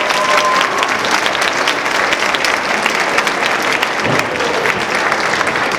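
Audience of students applauding steadily.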